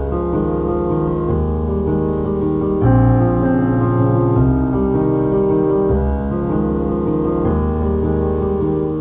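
Background music: piano chords played at an even pace.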